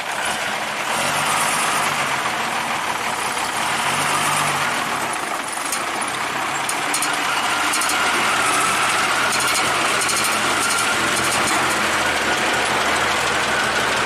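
Old ZIL truck engine running after a hand-crank start, getting louder about a second in, with two brief swells in the first five seconds before it settles into steady running.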